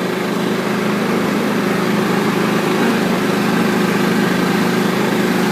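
Riding lawn mower's engine running at a steady pitch, heard from the driver's seat as it is driven.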